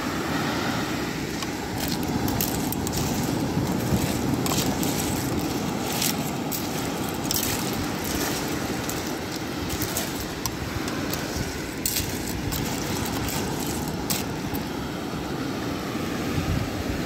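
A big pot of pipi clams boiling hard on a portable stove: a steady rumbling boil with scattered crackles and pops.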